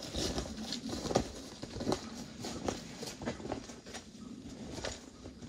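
Footsteps of snowshoes and boots crunching through snow at a walk, irregular steps a few a second.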